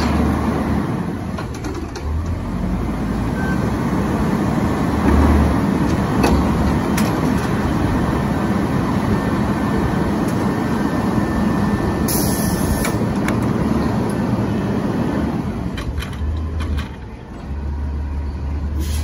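Autocar ACX garbage truck's diesel engine running while its hydraulic arm lowers the Curotto Can from over the cab down to the front of the truck. A short hiss of air about twelve seconds in; the engine sound dips briefly near the end.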